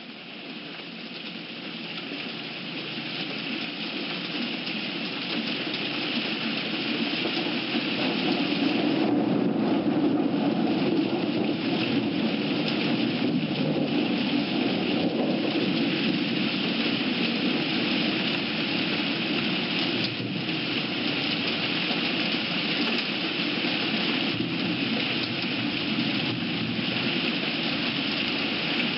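Steady rain, fading in over the first several seconds and then holding level.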